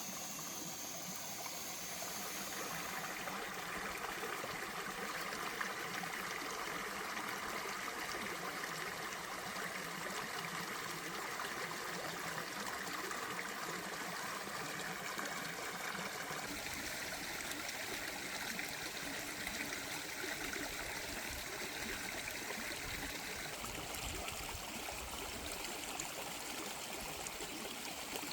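Running water flowing and trickling steadily, like a small stream. The flow shifts a little in tone about two seconds in and again past the middle.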